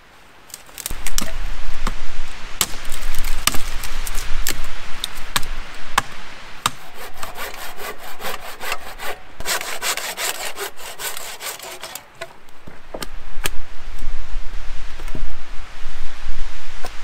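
Hand saw cutting through a thin conifer pole with fast rasping strokes, densest in the middle. Before and after come scattered sharp cracks and knocks of dry wood being snapped and handled.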